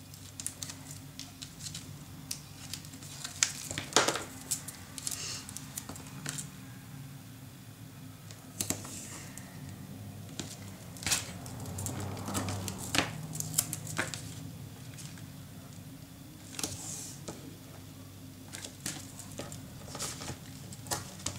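Paper and small crafting tools handled on a tabletop: scattered light taps, clicks and paper rustles, with a steady low hum underneath.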